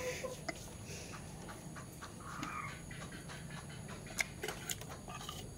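Quiet eating sounds: a crisp fried puri being torn by hand and chewed, giving scattered small crackles and clicks with a few soft mouth noises.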